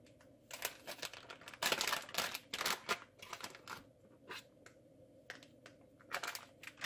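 A plastic spice bag of paprika crinkling and rustling in the hand as it is shaken out over the pot, in quick clusters during the first few seconds, then a few lighter rustles and clicks as the handling goes on.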